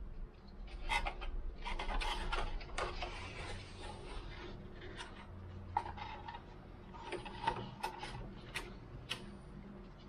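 Handling sounds of a new sanding belt being fitted by hand onto a belt sander: scattered clicks and light knocks of the machine's metal parts, with stretches of the belt rubbing over the wheels.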